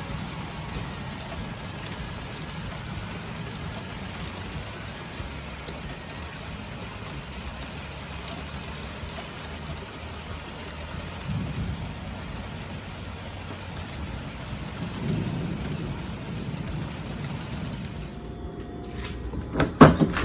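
Steady rain falling in a storm, with a couple of low rumbles partway through. It cuts out briefly near the end, followed by a few sharp knocks.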